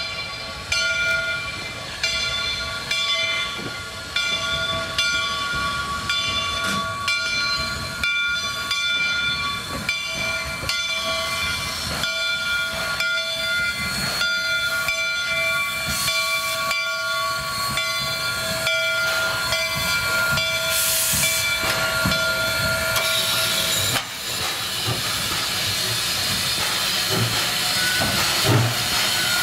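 Steam locomotive 2-8-2 Mikado #142 blowing its chime steam whistle in long drawn-out blasts over the even beat of its exhaust. The whistle stops about 24 seconds in, leaving the hiss of steam and a few low thumps as the engine passes close by.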